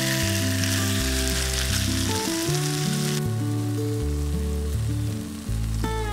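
Egg-coated sandwich sizzling as it fries in oil in a nonstick pan. The sizzle is loud for about the first three seconds, then drops to a softer sizzle. Background music with a bass line plays throughout.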